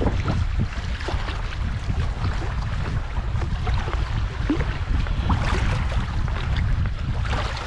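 Wind buffeting the microphone in a steady low rumble, over sea water sloshing and splashing against a rocky shore.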